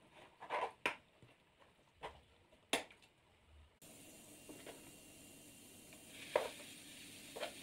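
A spoon knocking and scraping against a steel pan of sardine curry as gravy is spooned over the fish: a handful of short, sharp knocks. From about four seconds in, a steady faint hiss runs underneath.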